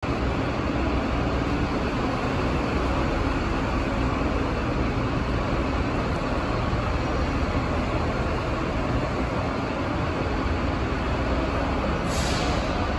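Steady low rumble of a covered bus terminal, with a short hiss about twelve seconds in.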